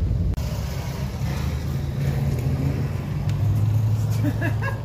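Car engine running with a low exhaust drone, which deepens and grows stronger about three seconds in.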